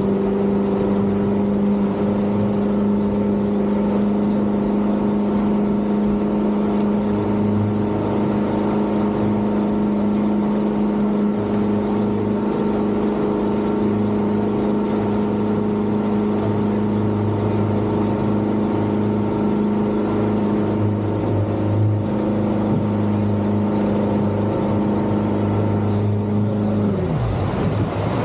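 Outboard motor driving a rigid inflatable boat at speed, a steady engine drone with water rushing past; about a second before the end the pitch drops sharply as the throttle is cut back.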